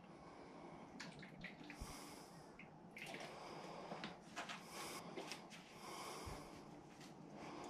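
Faint gulps and breathing of a man drinking from a bottle, followed by scattered small clicks and rustles as the bottle is handled.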